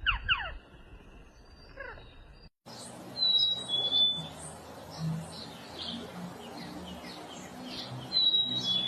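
Birds calling: a few quick downward-sliding chirps, then an abrupt change to a busier mix of short chirps and clear whistled notes.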